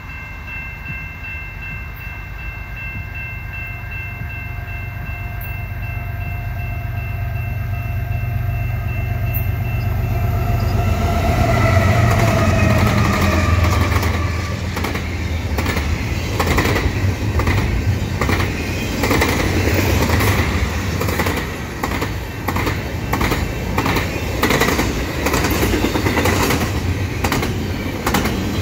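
Canadian Pacific freight train led by GE ES44AC diesel locomotives approaching, its horn holding a long chord over the engine rumble and growing louder. About eleven seconds in, the horn's pitch drops as the lead locomotive passes, and it stops soon after. The double-stack container cars then rush past with rapid wheel clicks and rattling.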